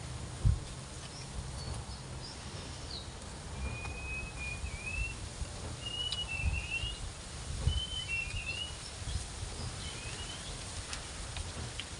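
Birds chirping outdoors, repeated short calls that sweep upward or hold level, over a low rumble of wind on the microphone. A single sharp thump about half a second in, with a few softer bumps later.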